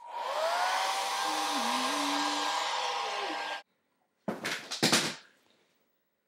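A small electric motor blowing air switches on, its whine rising to speed, runs steadily with a rushing hiss for about three and a half seconds, then cuts off suddenly. A few loud knocks follow about a second later.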